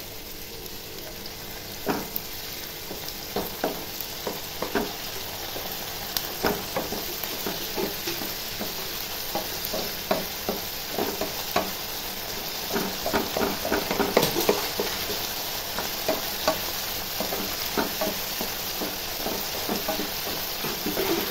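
Onions, tomatoes and green chilli sizzling in hot oil in a frying pan while a wooden spatula stirs them: a steady frying hiss with many irregular knocks and scrapes of the spatula against the pan.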